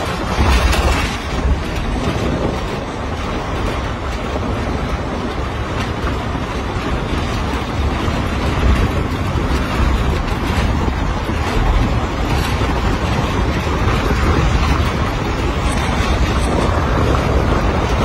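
Wind buffeting the microphone, together with the rumble of a vehicle driving along an unpaved dirt road. The noise is steady and heaviest in the low end.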